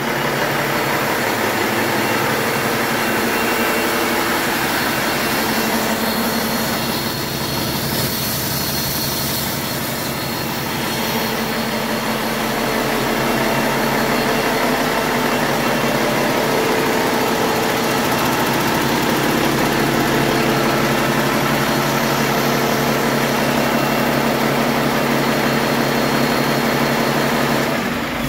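2015 Cummins ISX15 inline-six diesel engine running steadily on a test stand, at constant speed with no change in pitch. The engine is running well, with no knock or miss.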